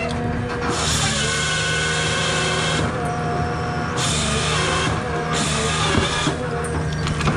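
Diesel forestry machine engine running steadily, with three bursts of hissing noise over it, the first about a second in.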